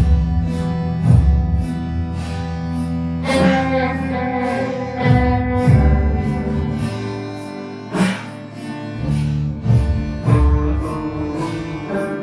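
Instrumental background music: plucked string notes over sustained low tones.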